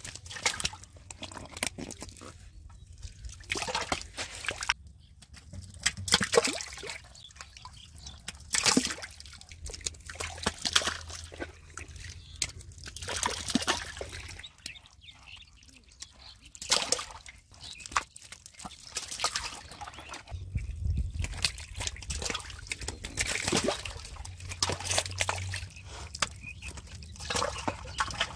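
Catfish splashing and flopping in shallow muddy water: irregular sloshing splashes, some loud, some soft.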